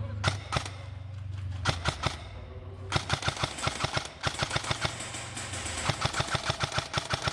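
Airsoft guns firing: a few single shots, then long rapid full-auto bursts of sharp clicks, with a brief pause about four seconds in.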